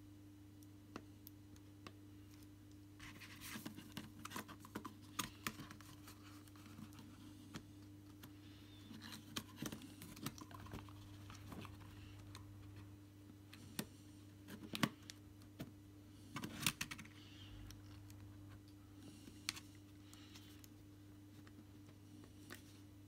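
Scattered light plastic clicks and short scrapes as a netbook keyboard is worked and pressed back into its frame, a few sharper snaps among them, over a steady low hum.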